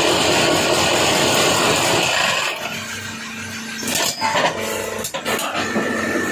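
Automatic paving block machine running: a loud, even vibrating rattle for about the first two and a half seconds, then a quieter steady hum with several sharp clanks about four to five seconds in.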